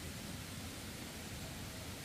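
Steady hiss of background noise, even throughout, with no distinct knocks or other events standing out.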